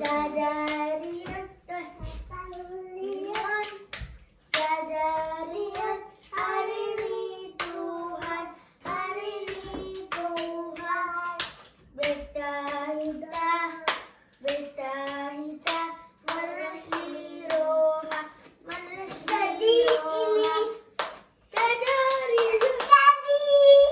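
A child singing a song, with hand claps in time with the singing.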